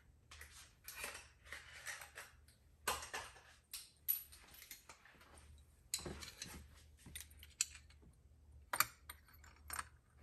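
Faint, irregular clicks, knocks and rustles of small metal tools and spark-plug parts being handled during a spark plug change.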